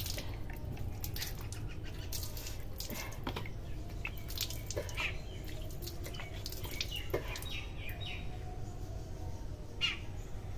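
A woman sniffling through her nose several times, short breathy sniffs over a steady low hum; her nose is running after a round of repeated sneezing.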